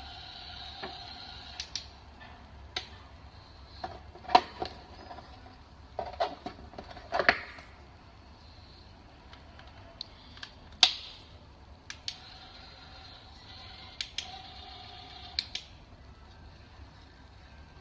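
Irregular sharp plastic clicks and knocks as facial cleansing brush heads are pulled off, snapped onto the handle and set into a plastic storage case, a few of them loud. A faint steady hum sounds at the start and again about twelve seconds in.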